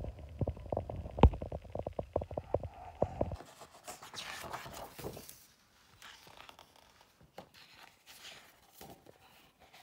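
Photo book being handled: a quick run of low knocks and rubbing with one sharp thump just over a second in, then a page turned with a papery rustle about four seconds in, followed by faint scratching of paper.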